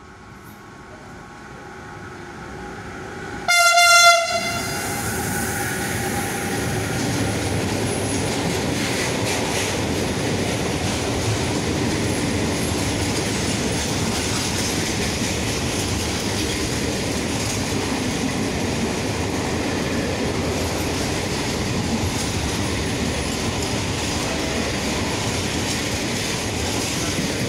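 A container freight train approaching and running through the station without stopping. Its noise builds over the first few seconds, then the locomotive gives one short horn blast about three and a half seconds in, the loudest moment. After that the wagons pass with a steady rumble of wheels on rail.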